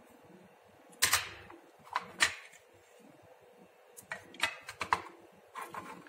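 Plastic clicks and knocks from the red plastic housing of a Bolid manual fire alarm call point being handled and fitted back together. The sharp clicks are scattered, with the loudest about a second in and just after two seconds, and a quicker run of lighter clicks near the end.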